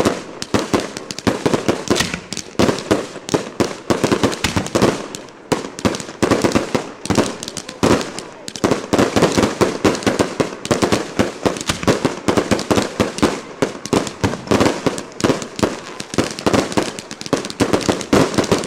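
Fireworks barrage firing: many shots rising at once and bursting in rapid, continuous pops and crackles, several a second.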